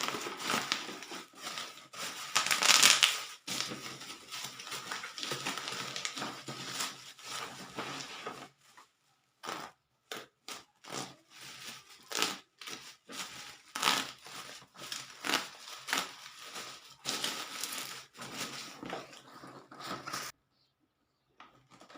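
Toy packaging being unwrapped: dense crinkling and crackling, loudest about three seconds in, then breaking into separate rustles and crackles until it stops near the end.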